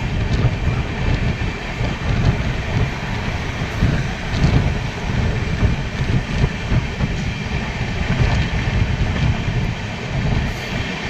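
Amrit Bharat Express passenger train running along the track: a steady low rumble of wheels and running gear, with a few faint, irregular clicks.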